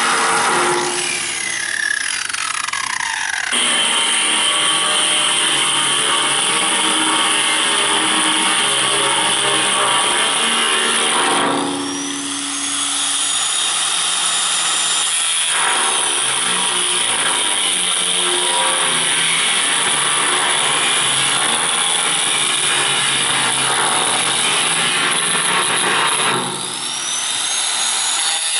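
Angle grinder working the steel of a propane tank, a loud steady hiss of disc on metal. Three times it eases off the work, and its whine falls and climbs again before it bites back in.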